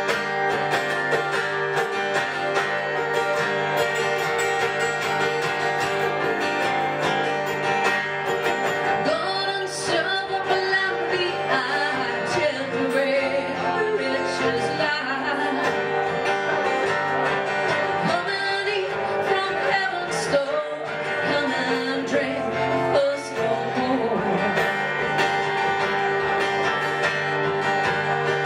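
Live country music on strummed acoustic guitars, with a voice singing over the middle stretch.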